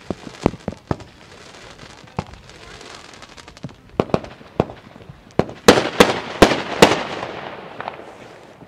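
Consumer fireworks firing: scattered pops and bangs over a faint crackling hiss, then a quick run of four or five loud bangs about six seconds in, followed by a crackling hiss that dies away.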